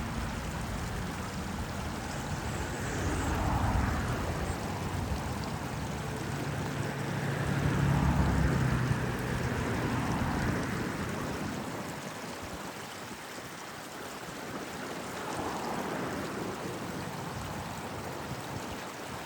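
Small stream babbling steadily, with road traffic in the background: passing vehicles swell and fade, loudest about eight seconds in.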